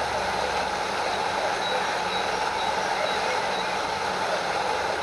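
Stream water rushing and splashing over a small waterfall, a steady, even sound.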